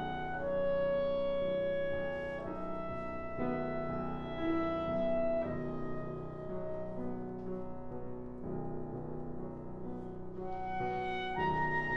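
Solo clarinet playing long held notes that move from pitch to pitch, over piano accompaniment; the playing grows softer in the middle and swells louder near the end.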